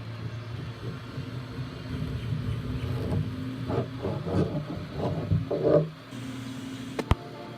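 Car driving, with a steady low rumble of engine and road noise. A few short, louder sounds rise over it between about three and six seconds in, and there is a single sharp click near the end.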